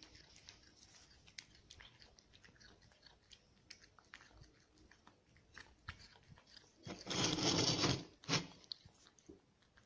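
Domestic cat eating soft food from a plate, close up: a run of small wet chewing and licking clicks. About seven seconds in comes a louder noisy burst lasting about a second, then one more short one.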